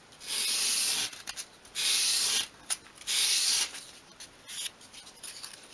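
Small strip of obeche wood swept edge-first across a sheet of sandpaper three times, each sanding stroke a half-second rasping hiss, rounding over the wood's edge. A few faint clicks follow near the end.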